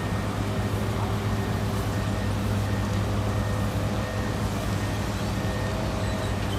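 Truck engine running steadily, a constant low hum with a few even tones above it that hold their pitch.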